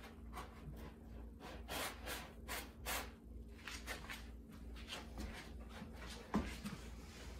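A tabby cat digging in a plastic litter box, its paws raking the cat litter in a run of short scratching strokes, with one thump about six seconds in.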